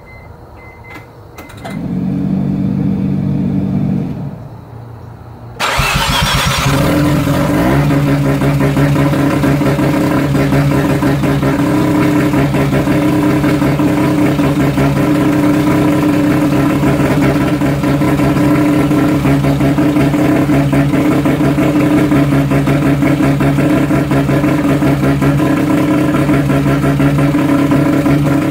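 Freshly rebuilt half-bridge-ported Mazda 13B-REW rotary engine being started: the starter cranks it for about two seconds and stops. About five and a half seconds in, the engine fires with a sudden loud burst and settles into a steady idle.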